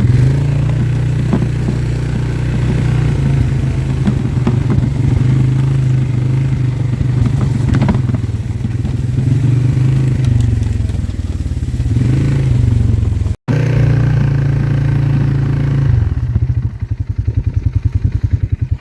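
Four-wheeler (ATV) engine running, its revs rising and falling as it is ridden, with some clatter. Near the end it drops to an even, pulsing idle.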